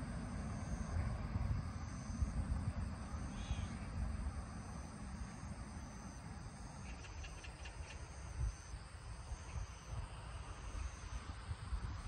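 Insects chirping: a high, thin trill repeating in short pulses about once a second, over a low rumble. A brief run of faint ticks comes about seven seconds in.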